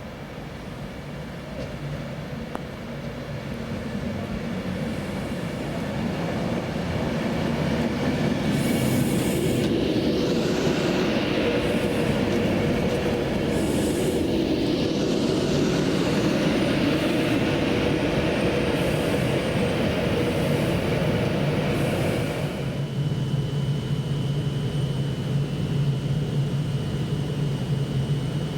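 A train approaching and running along the rails, growing louder over the first several seconds, with sharp clicks from the wheels over the track. About three quarters of the way through the rushing sound drops away, leaving a steady low hum and a faint high whine.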